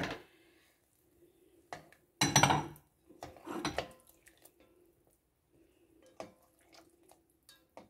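Black plastic slotted spoon knocking and scraping against an enamelled cast-iron pot as gulab jamun are turned in sugar syrup. It comes in several short clatters, the loudest about two seconds in.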